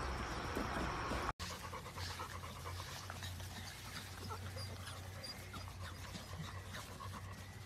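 Puppies eating from a plastic multi-bowl feeder, a dense crunching for about the first second. After a sudden cut, puppies panting as they run across grass, with many small ticks and a low hum behind.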